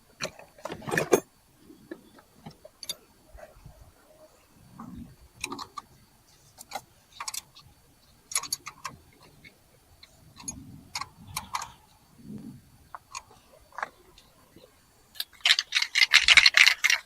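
Hand tools and metal parts clinking and knocking irregularly while a starter motor is fitted to a car, with a louder run of rapid clicking near the end.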